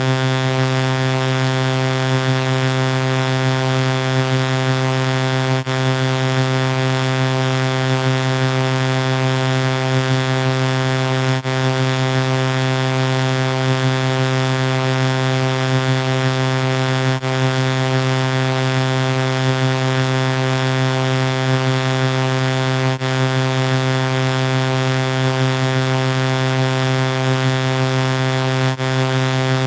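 A synthetic buzzing tone from a vocoder, held on one low pitch with many overtones and no change in pitch or loudness. It repeats as a loop, with a brief dip about every six seconds.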